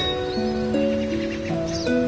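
Background instrumental music: calm sustained notes that change in steps, several at once.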